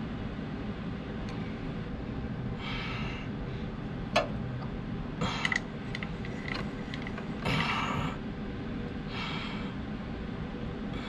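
Clicks and a sharp knock from the tailstock and chuck of a small metal lathe being handled and set against a cue tip, with a few short noisy bursts, over a steady low hum.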